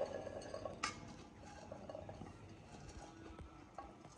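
Light clatter of cooked chickpeas tipped from a frying pan onto a serving dish, with a sharper click a little under a second in and faint ticks after.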